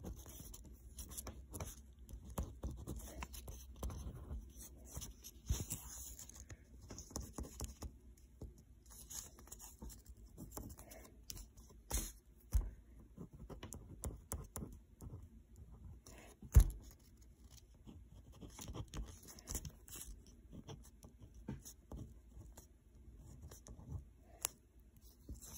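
Pen scratching across paper in short, uneven strokes as words are handwritten, with small clicks and taps throughout. One sharp knock about two-thirds of the way through is the loudest sound.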